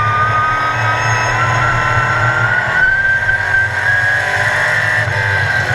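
Sportsman-class race car's engine running at racing speed, heard from inside the cockpit. Its pitch rises steadily as the car accelerates, holds, then eases slightly near the end.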